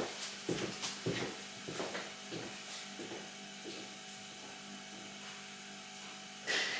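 Light taps and scrapes of small hand tools working on a laptop logic board, about half a dozen in the first couple of seconds, then a louder brief clatter near the end.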